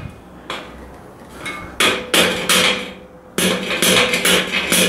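A white rubber mallet striking a steel shelving beam to knock it down into the slots of its upright: several sharp blows in irregular groups, driving the beam's connectors into place.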